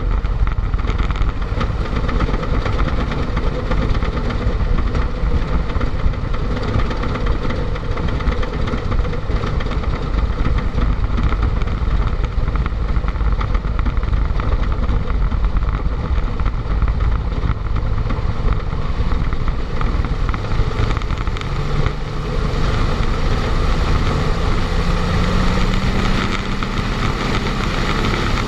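Vintage aircraft's piston engine running steadily, heard from inside the closed cockpit canopy. A little past two-thirds through, the engine note rises and then holds at the higher pitch.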